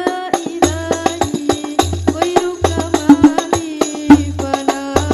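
Hadrah Al-Banjari percussion: rapid interlocking frame-drum (terbang) strikes, many a second, over a deep bass-drum beat about once a second.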